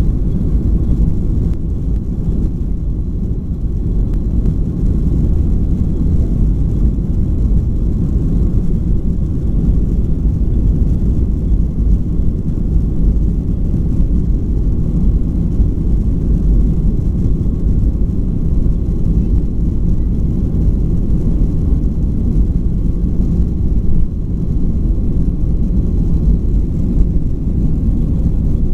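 Boeing 737-800 cabin noise while the airliner rolls along the runway: a steady low rumble from its CFM56 engines and wheels, with no clear spool-up or change in pitch.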